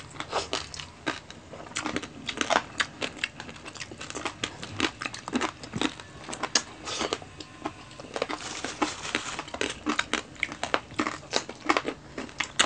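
Crunching and chewing of crispy roast-pig (lechon) skin: a quick, irregular run of sharp crackles and bites.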